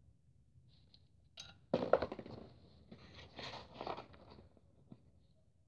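Short bouts of crunching and scuffing on gravel, with a few light clicks in between.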